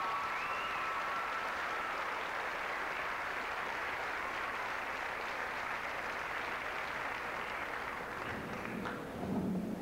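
Audience applauding steadily, with a high whistle riding over the clapping in the first second or so. The clapping thins out near the end.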